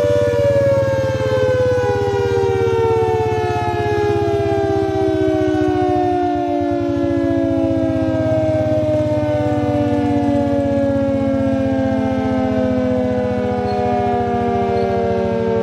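A loud siren-like wail made of several tones together, falling slowly and steadily in pitch throughout, over a steady low hum.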